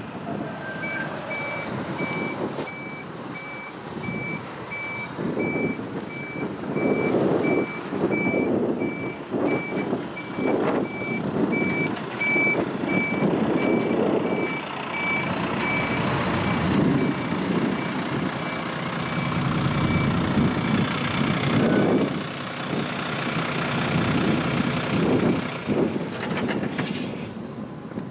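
A steady series of high electronic beeps, about one a second, over a low rumble that swells and fades; the beeps stop a few seconds before the end.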